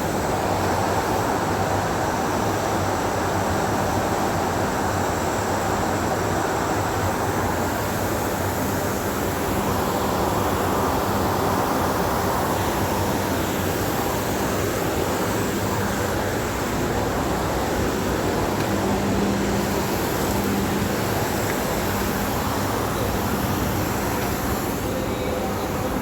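Steady industrial roar of heavy plant machinery, a continuous even rush of noise with a faint low hum underneath.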